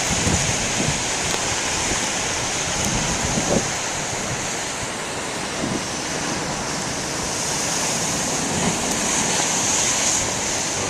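Heavy storm surf breaking and rushing along the shore in a steady roar of water, with wind blowing across the microphone.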